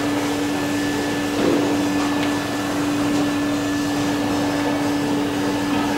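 H2S ground-mapping radar scanner's electric drive motor running and turning the dish at its slow speed: a steady whirring hum with a fainter high whine over it.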